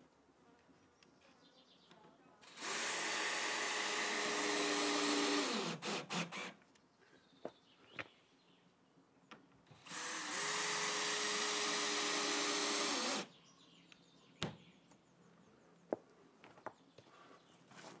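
Cordless drill driving screws into wooden planks, in two runs of about three seconds each, the motor winding down as the first ends. A few light clicks and one sharp knock follow.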